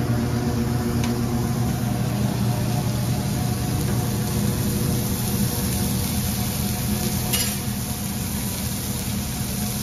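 Raw beef burger patty sizzling on a hot flat-top griddle, a steady hiss over a low steady hum.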